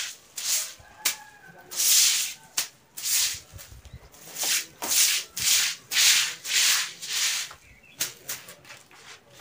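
Stiff grass broom sweeping standing water across a wet floor: repeated scratchy swishes, about two strokes a second through the middle, after a quieter pause near the start.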